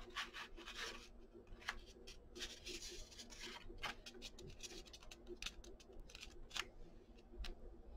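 Sublimation transfer paper rustling and crinkling, with many light irregular clicks and taps, as hands smooth and tape it onto a satin stole, over a faint steady hum.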